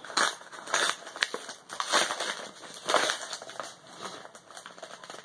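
Wrapping paper crinkling and tearing in short, irregular rustles as a wrapped gift is opened by hand.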